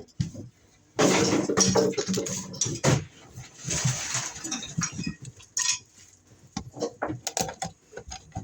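Metal clinks, clicks and rattles of hand tools and screws being handled at a wall outlet. A louder, denser two-second stretch of scraping and rattling comes about a second in.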